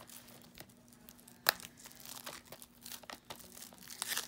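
Clear plastic shrink-wrap on a DVD case crinkling and tearing as fingers pull it off, in scattered crackles with one sharp snap about a second and a half in and denser crackling near the end.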